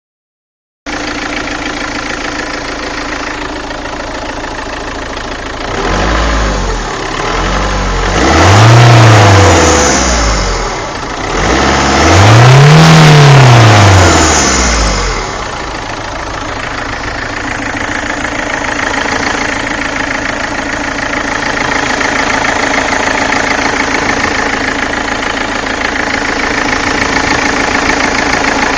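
Peugeot 406 HDi diesel engine idling, revved twice, the first starting about six seconds in and the second about eleven seconds in, each rising and falling in pitch before settling back to idle. The owner hears a strange noise in it, on an engine that is throwing oil.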